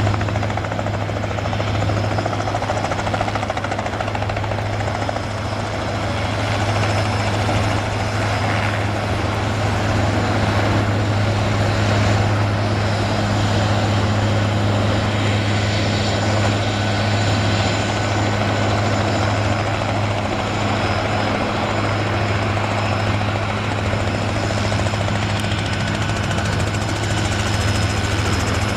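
Robinson R66 helicopter running steadily, its Rolls-Royce RR300 turboshaft engine and rotors making a constant low drone with a faint high whine above it.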